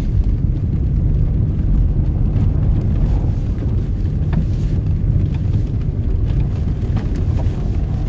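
Alfa Romeo Spider V6 driving slowly on snow with snow chains fitted, heard from inside the cabin: a steady low engine and tyre rumble, with a few faint clicks.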